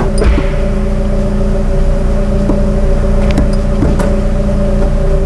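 Lotus Elise 240's supercharged 1.8-litre Toyota four-cylinder idling steadily, with a few light clicks.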